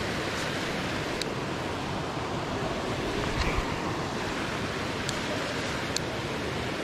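Fast-flowing glacial river rushing steadily, with a few faint short clicks over it.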